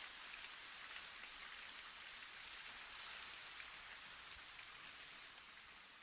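Faint, steady patter of falling rain, a soft even hiss.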